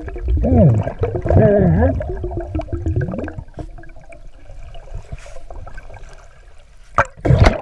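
Muffled underwater sound of water moving and gurgling around a camera held below the surface, with wavering, gliding tones in the first few seconds, then two sharp loud bursts of noise near the end.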